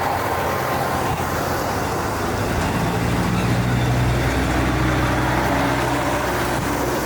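A diesel train engine running steadily with a low hum, its pitch stepping up about three seconds in.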